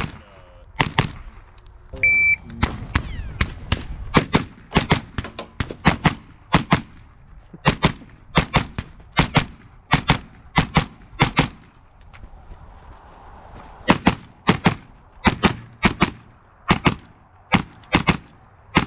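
Rifle fire from a Sig MCX Spear: a long string of sharp shots, mostly in quick pairs, with a brief lull about twelve seconds in. A short steady beep sounds about two seconds in.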